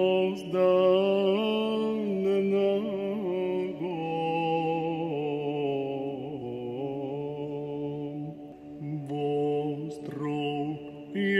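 Orthodox Byzantine-style chant sung in Church Slavonic: a single voice draws out a long melisma on held notes, sliding between pitches, with short breaks near the end.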